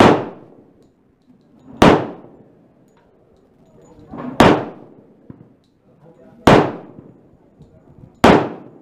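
Glock 30 pistol with a Storm Lake 10mm conversion barrel firing 180-grain full-metal-jacket 10mm rounds: five single shots, roughly two seconds apart, each with a ringing echo that fades away.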